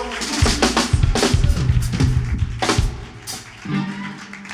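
Live band drum kit playing a busy run of bass drum and snare hits, with a cymbal crash a little past halfway, then quieter held notes from the band near the end.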